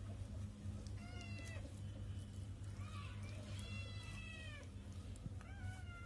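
Cats meowing: three high-pitched meows a couple of seconds apart, each falling slightly in pitch, over a steady low hum.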